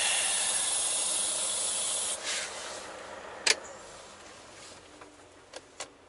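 A steady, loud hiss inside a truck cab that stops about two seconds in and dies away. It is followed by a sharp click and two fainter clicks near the end.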